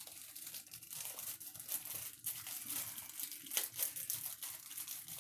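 Plastic kit parts bag being handled and pulled open, crinkling irregularly with some tearing.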